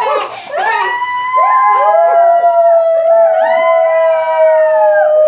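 Several children howling together, their voices overlapping in long, high held notes that start and break off at different times.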